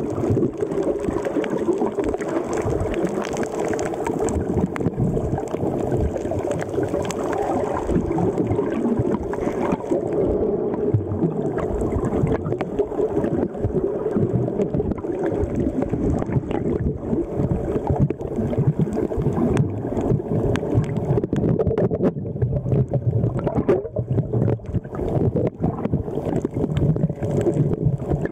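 Muffled rush of moving water and air bubbles picked up by a submerged waterproof camera's microphone, with frequent small pops and crackles.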